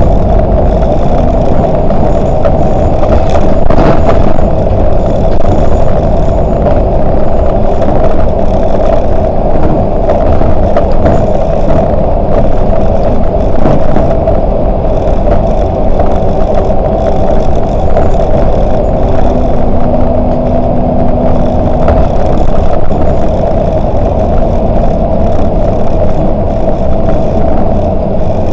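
Volvo 8900LE three-axle bus driving, a steady engine and road drone with occasional knocks and rattles.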